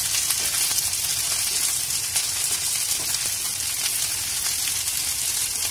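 Chopped okra frying in hot oil in a non-stick pan over a high gas flame, a steady sizzling as it is turned with a silicone spatula.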